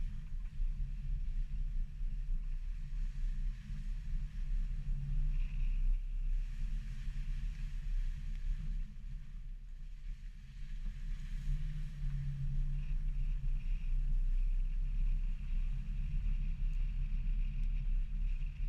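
A 2016 Subaru XV driving along a muddy dirt track: a deep, muffled rumble of engine and tyres, rising and falling a little in loudness, with almost nothing in the higher sounds.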